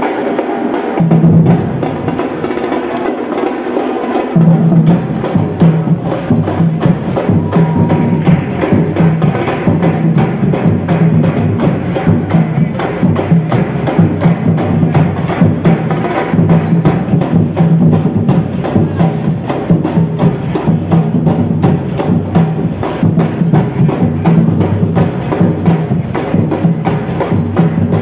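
Street percussion group drumming a dense, driving rhythm with a deep drum part underneath. The low drums play briefly about a second in, drop out, then come back about four seconds in and carry on.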